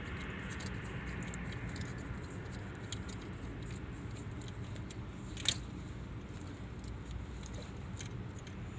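Electrical tape and wires being handled at a splice: small clicks and crinkles, with one sharper click about five and a half seconds in, over a steady low hum.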